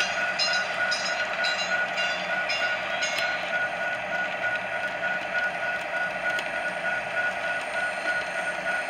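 Model commuter train running steadily past on layout track: a continuous rolling and motor hum. A high repeated ringing sound, about two and a half times a second, stops about three seconds in.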